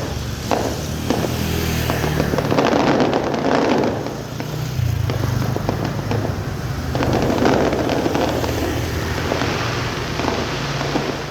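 Fireworks bursting in rapid, irregular bangs, with two long stretches of dense crackling. A steady low engine hum from vehicles runs underneath.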